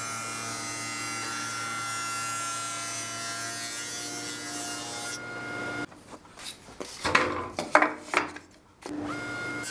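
HICAS H1763 spindle moulder running with a steady hum. About six seconds in, a stack of 6 mm finger-joint cutters bites into the end of a wooden board pushed past on the sliding carriage: a few seconds of uneven, loud cutting noise, loudest about a second and a half later. The steady hum comes back at the end.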